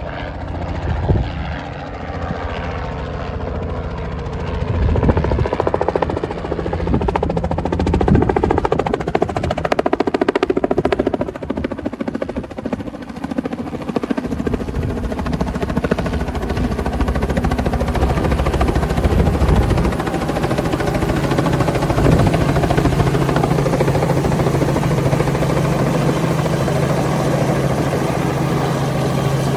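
Small helicopter's rotor and engine, growing louder as it approaches and then hovering close overhead. The blade beat is steady, and a low hum holds through the last third.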